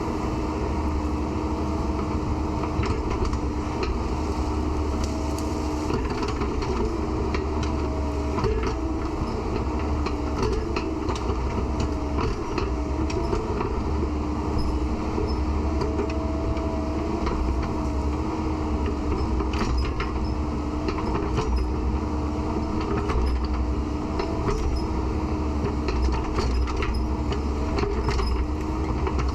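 Excavator's diesel engine running steadily, its hum wavering slightly in pitch, with scattered short clanks and knocks throughout.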